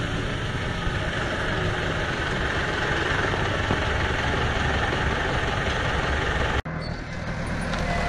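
Farm tractor's diesel engine running steadily as the tractor drives in close to the camera. The sound drops out for an instant about six and a half seconds in, then the engine carries on.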